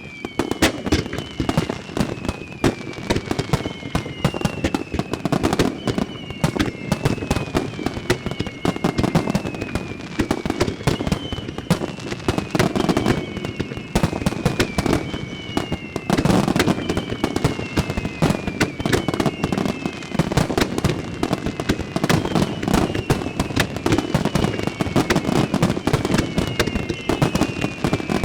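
Fireworks star mine (rapid-fire barrage) going off continuously: a dense run of shell bursts and crackling, with whistling shells sounding over it, each whistle falling in pitch, one every second or two.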